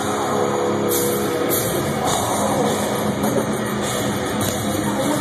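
Metalcore band playing live through a concert PA: distorted electric guitars and a drum kit, loud and without a break.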